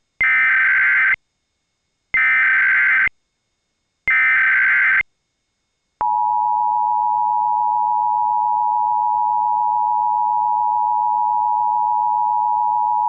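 Emergency Alert System SAME digital header bursts in the style of a Sage 1822 ENDEC: three harsh warbling data bursts of about a second each, a second apart. About six seconds in, the steady two-tone EAS attention signal starts and holds.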